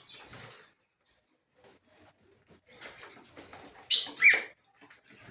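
Caged songbirds giving scattered short, high chirps and calls, the loudest a brief call with a bending pitch about four seconds in.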